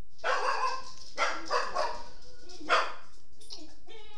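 A dog barking, about five short barks over the first three seconds.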